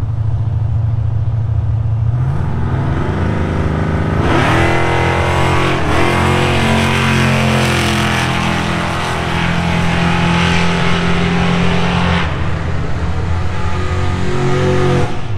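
Drag racing cars' engines at the strip: a steady engine note rises about two seconds in, then a loud full-throttle run climbs in pitch through a gear change, and drops back down about three seconds before the end.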